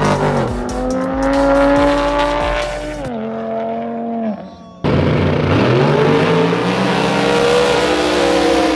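Drag-racing cars under hard acceleration, their engine note climbing and then dropping sharply about three seconds in. After a short dip, loud engines start up again and climb in pitch.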